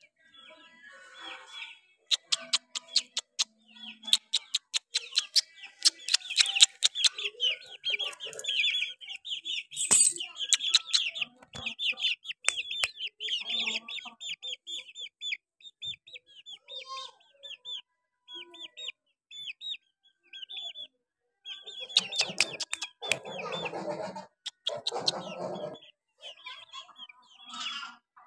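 Young chickens peeping in a rapid, continuous stream of short high chirps, with sharp clicks and knocks in the first part. Near the end there are two harsher, noisier bursts, each a couple of seconds long.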